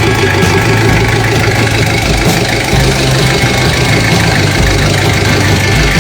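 Overhauled Ford Econoline diesel engine idling steadily with an even low pulse.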